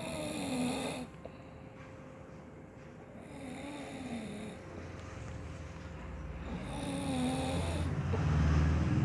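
A person snoring: three rattling snores about three seconds apart, each with a wavering pitch. A low rumble swells in the second half and is the loudest sound near the end.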